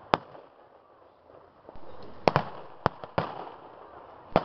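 Reenactors' rifles firing blanks: about five sharp single shots, irregularly spaced. One comes just after the start, three follow through the middle and later part, and one comes at the very end.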